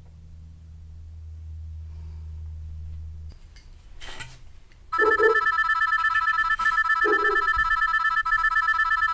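Telephone ringing: a loud, continuous high trilling ring starts about five seconds in and keeps going. Before it there is only a faint low hum and a single click.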